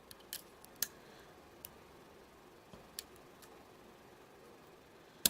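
Faint, scattered metallic clicks of lock picks working the pin stack of an ASSA Twin 6000 lock as pins are pushed into false set, with one sharper click near the end.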